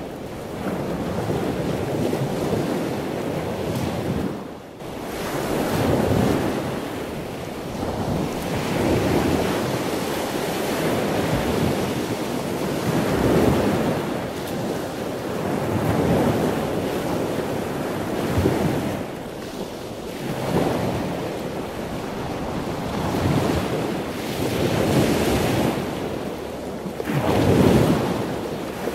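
Sea waves breaking and washing on the shore, the surf swelling and falling back every two to three seconds.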